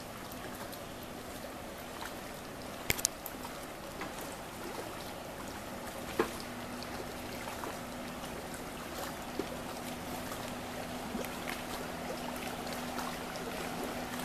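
Distant jet ski engine running steadily while towing a water skier, growing slightly louder toward the end, over water lapping. A few sharp clicks cut through, two close together about three seconds in and one about six seconds in.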